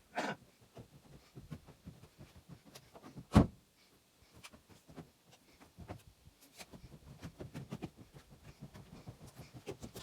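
Scattered light clicks and taps, with one sharp, loud knock about three and a half seconds in.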